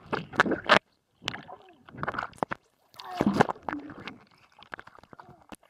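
Pool water splashing and churning right against a waterproof camera, in ragged bursts that cut off suddenly twice.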